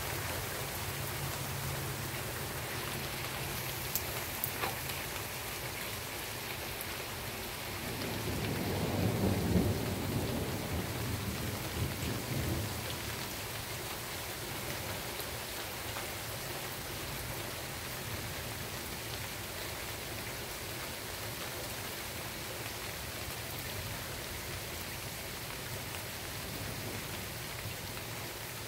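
Rain falling steadily throughout, with a low rumble of thunder building about eight seconds in, loudest a second or two later and dying away a few seconds after.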